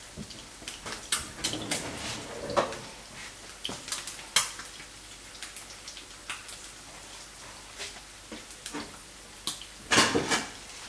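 Eggs frying in hot oil in a nonstick pan: a faint steady sizzle with irregular sharp crackles and pops. There is a louder clatter near the end.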